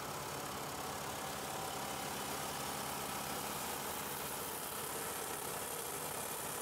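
Four-cylinder turbocharged 4105 diesel engine of a 56 kW generator set running steadily at its fixed 1500 rpm, with an even, unchanging engine note.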